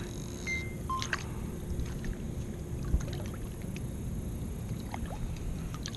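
Water sloshing and lapping beside a kayak while a released largemouth bass is held in the water to recover. There are two short high chirps in the first second and a single knock about three seconds in.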